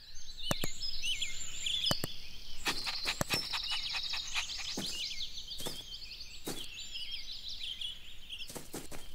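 Garden birdsong: many small birds chirping and twittering in quick high notes, with scattered short sharp clicks.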